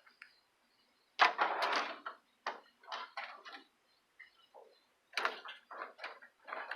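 Scrap metal being handled, clanking and rattling in a string of short, irregular knocks; the loudest clatter comes about a second in.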